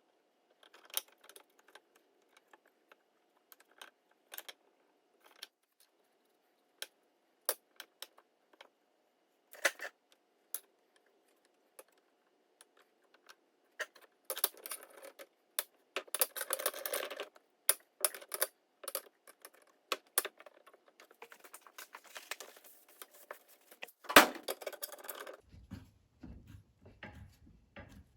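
Wooden strips and tools clicking and clattering as they are handled and laid together for a glue-up. The clicks are scattered at first, then come in two busy stretches in the second half, with one loud knock near the end.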